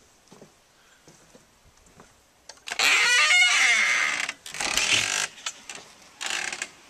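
A wooden door with a lever handle is unlatched and swung open, creaking for about half a second, amid loud rustling and knocking about three seconds in. Before that there are only faint footsteps on grass.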